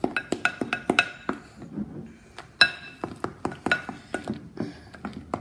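A spoon clinking rapidly and irregularly against a glass bowl as slime is stirred, each tap ringing briefly. The tapping slows for a moment about two seconds in, and the loudest clink comes just after.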